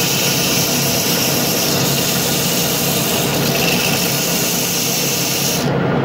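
Abrasive paper hissing against a brass washer spinning on a metal lathe, polishing its face, over the steady hum of the running lathe. The hiss cuts off near the end as the paper is lifted away, leaving the lathe running.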